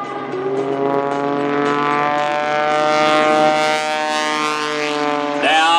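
Pitts S2S aerobatic biplane's engine and propeller droning at high power in one steady note, rising slightly in pitch in the first second and growing louder over the first two seconds. A voice begins just before the end.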